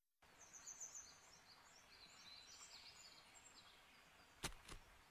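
Faint birdsong: many quick, high chirps over a light outdoor hush, with two short clicks close together near the end.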